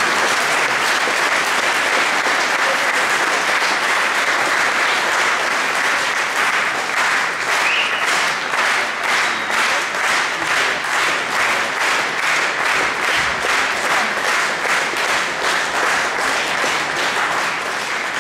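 Audience applause, dense clapping at first that about six seconds in settles into rhythmic clapping in unison, about two to three claps a second, dying away at the end.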